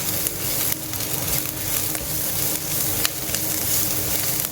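Onions, ginger-garlic paste, curry leaves and red chillies sizzling steadily as they sauté in hot oil, with a spatula stirring and now and then clicking against the vessel.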